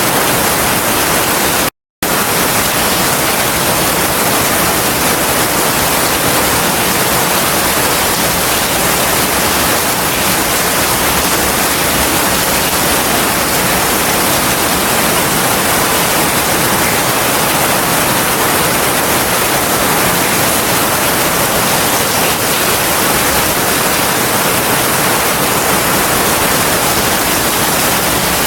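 Heavy rain falling as a steady, dense hiss. It cuts out completely for a split second about two seconds in.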